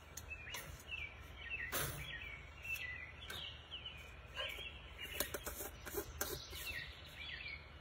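Small birds chirping, with many short high chirps coming one after another. A few light clicks and knocks sound as a plastic lid is put back on a peanut butter jar.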